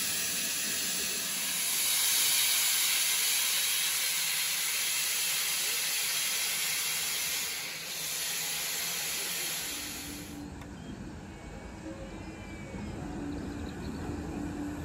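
Steady loud hiss of steam escaping around the front end and cylinders of standing steam locomotive 2999 Lady of Legend, cutting off abruptly about ten seconds in. After that a quieter low rumble with a faint steady hum from a moving train.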